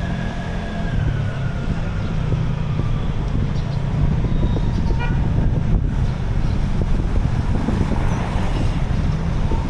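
Street traffic with engines running past and wind rumbling on the microphone, and a short horn toot about five seconds in.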